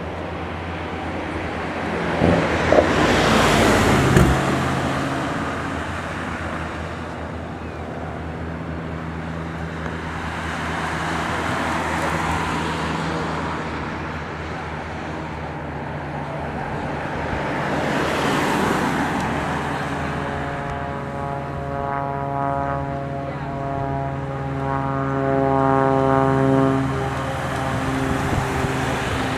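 Small propeller aircraft passing one after another as they depart. Their engine drone swells and fades about four times over a steady engine hum, and a clearer, steady engine note comes in during the last third.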